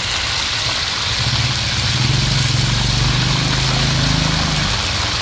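Hot oil sizzling steadily in a wok over a charcoal stove, with a motor vehicle engine running close by that swells about a second in and dies away near the end.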